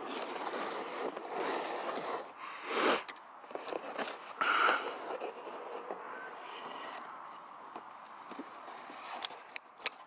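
Cardboard packaging being handled and opened: the cardboard scrapes and rustles as an inner box slides out of a shipping box and its lid is folded open, louder about three and four and a half seconds in, with a few sharp clicks near the end.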